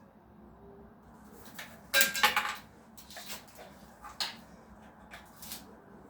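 Hard objects clattering as they are handled: a loud rattling clatter with a brief metallic ring about two seconds in, then a few scattered knocks and clicks.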